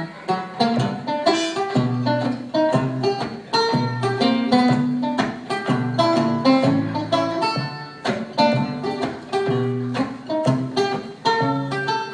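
Solo banjo picked in a fast, continuous run of plucked notes, played as an instrumental with no singing.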